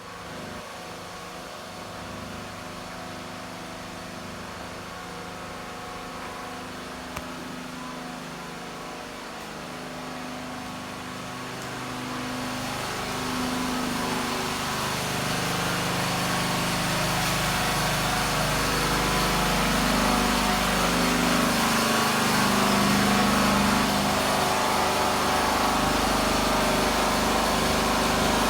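A small engine running steadily, its pitch drifting slightly, growing louder about halfway through.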